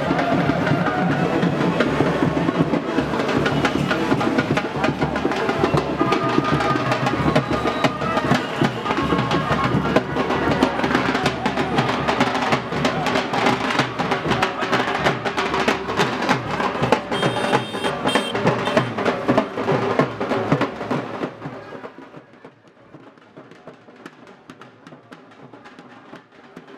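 Indian baraat brass band playing: brisk, dense drumming with brass over it. About 21 seconds in, it drops away to a much quieter background.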